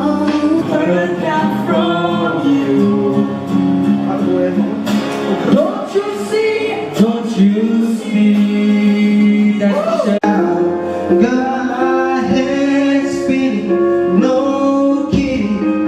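A song with a male singing voice over guitar and a steady backing.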